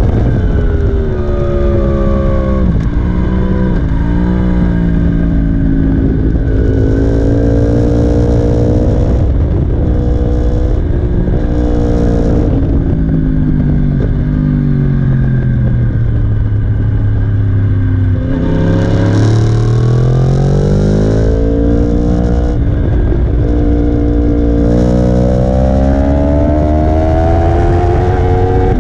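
Sport motorcycle engine heard from an onboard camera at racing speed. Its note falls as the bike slows for corners and climbs steeply under acceleration, with breaks in the climb at upshifts. Wind buffets the camera microphone throughout.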